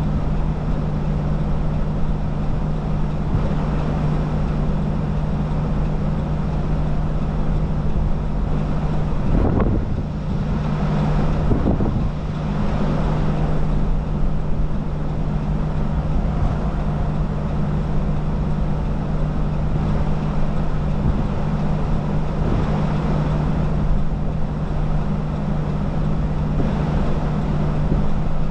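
Wind rushing over the microphone above a steady low hum, with two brief knocks or gusts about ten and twelve seconds in.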